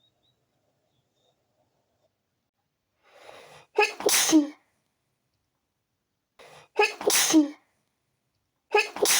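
A woman sneezing loudly three times, set off by a tickly nose. Each sneeze comes after a short breath in and ends in a falling voiced note. The sneezes come about three and then two seconds apart.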